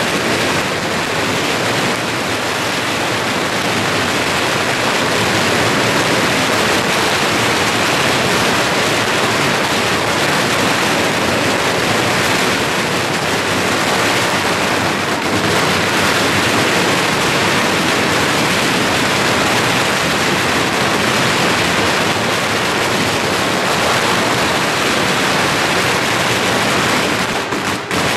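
Dense firecracker barrage going off without pause, the bangs so fast that they merge into one continuous loud crackling hiss, with a brief dip near the end.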